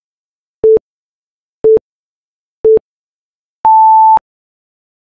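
Countdown timer beeps: three short beeps a second apart, then a longer, higher beep a second later marking zero, time up.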